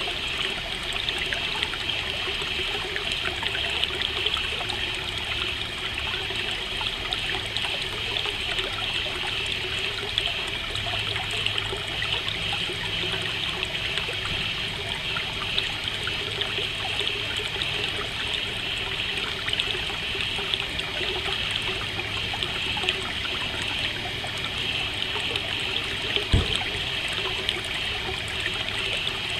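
Steady trickling running water, like a small stream, with one short sharp knock near the end.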